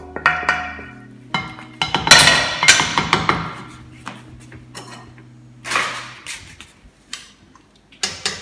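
A spatula knocking and scraping against a stainless steel frying pan as the sauce is emptied into a bowl, then the pan clattering down onto the gas hob grate about two seconds in, with further knocks and clinks of utensils later. Background music with sustained notes plays underneath.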